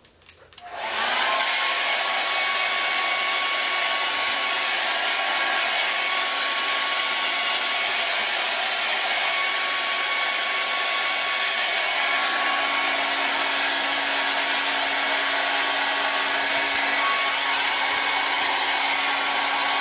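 Handheld blow dryer switching on about a second in, then blowing steadily with a thin motor whine over the rush of air. A lower hum joins about twelve seconds in.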